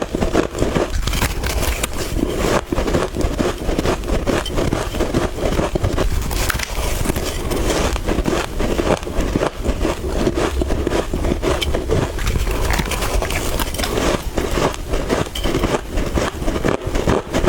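Close-up crunching of soft freezer frost being bitten and chewed, a continuous run of crisp crackles.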